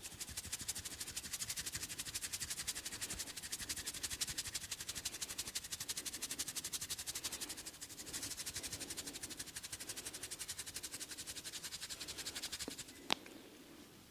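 Fast, even massage strokes on the hair and scalp, about nine a second, with a brief break about halfway through. A single sharp click comes near the end.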